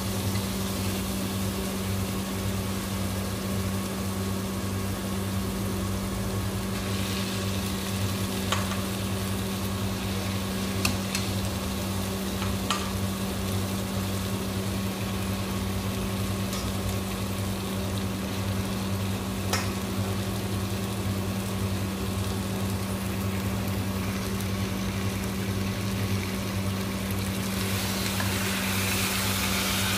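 Food frying in a pan, sizzling steadily, with a few light knocks of a utensil against the pan. A steady low hum runs underneath, and the sizzle grows louder near the end.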